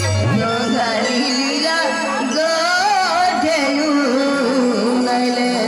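Live folk music over a PA: a voice singing a wavering, ornamented melody with drum accompaniment.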